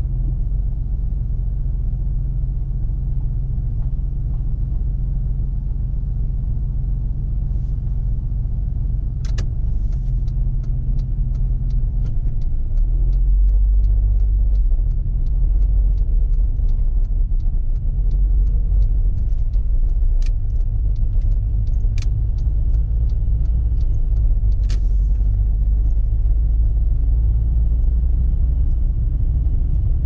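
Low road and engine rumble heard inside a moving car, growing heavier partway through as the car gets under way. Over it a turn-signal indicator ticks evenly a few times a second for about fifteen seconds, with a few sharper clicks among the ticks.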